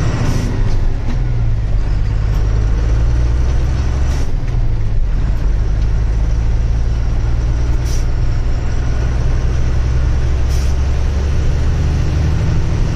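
Truck's diesel engine running steadily, a low drone with a short dip about four seconds in, and a few brief sharp clicks.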